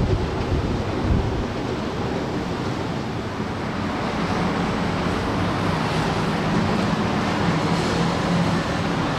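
Wind buffeting the microphone over a steady outdoor harbour rumble, with gusts near the start; a faint steady low hum joins about halfway through.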